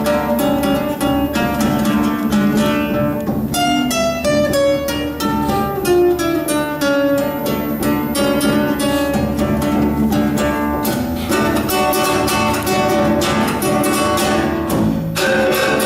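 Guitar music with quick plucked notes and strums, including a falling run of notes about four seconds in.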